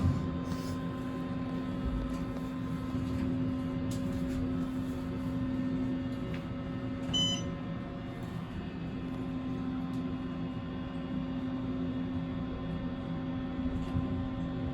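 Steady low electrical hum of Otis elevator equipment, with one short high electronic beep about seven seconds in, an elevator signal tone.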